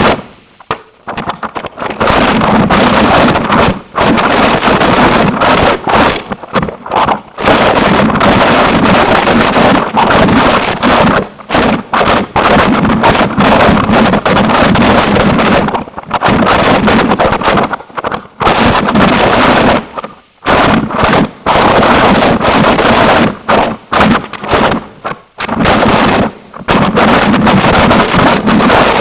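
Harsh noise music: a loud, dense wall of distorted noise across the whole range, chopped by frequent abrupt cut-outs to near silence.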